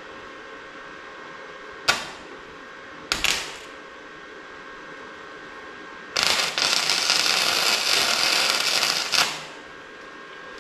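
Welder laying tack welds on a steel patch: two short crackling bursts about two and three seconds in, then a longer steady weld of about three seconds.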